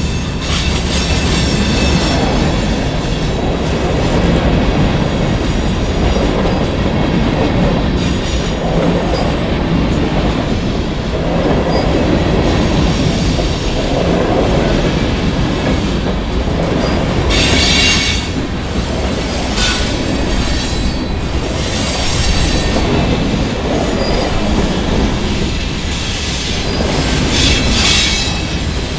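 CN freight train's cars rolling by in a continuous heavy rumble, wheels clacking over the rail joints, with short high-pitched wheel squeals about two-thirds of the way through and again near the end.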